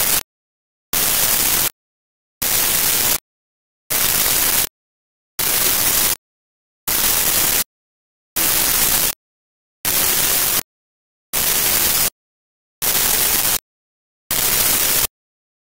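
Regular bursts of hiss-like static, each under a second long and spaced about a second and a half apart, with dead silence between them.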